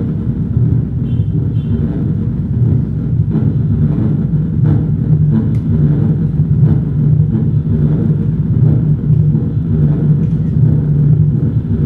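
Live electronic noise music from synthesizers and laptop: a loud, dense low rumble with faint scattered clicks above it.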